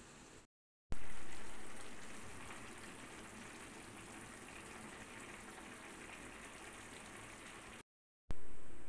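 Khichdi of rice, dal and water simmering in a covered pan: a steady bubbling hiss as the water cooks down into the rice. It starts loud after a short break and settles, with a second short break near the end.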